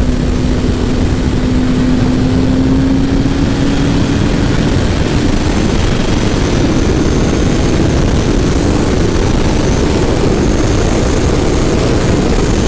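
Motorcycle ridden at speed: a loud rush of wind over the microphone, with the engine's steady note climbing slightly in pitch over the first few seconds, then sinking into the wind noise.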